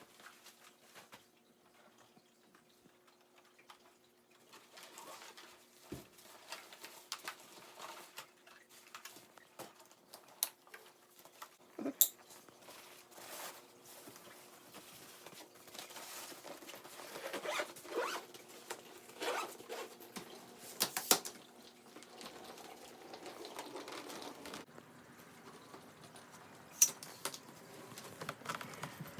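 Sewing supplies being packed into a fabric sewing machine bag: rustling and handling of the bag, scattered sharp clicks and knocks, and a zipper. A faint steady hum runs underneath.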